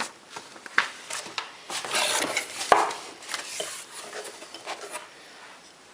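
Rustling and handling of an angle grinder's packaging, with scattered clicks and light knocks; a noisy rustle about two seconds in and a sharper knock just after it.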